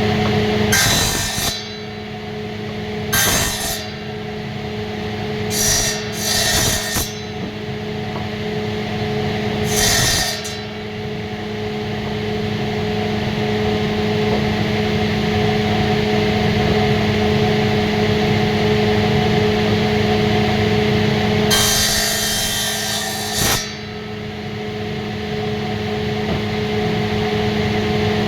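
Electric woodworking power tool running with a steady motor hum, cutting into wood in several short bursts and one longer cut of about two seconds near the end.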